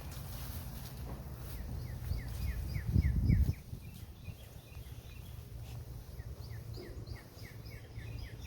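A bird calling in two quick runs of short, falling chirps over outdoor background noise. A brief low rumble about three seconds in is the loudest sound.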